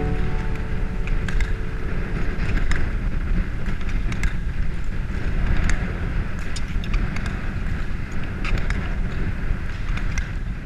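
Wind rumble on the microphone of a camera moving at skating speed, with short scattered scraping clicks from speed skates on the ice.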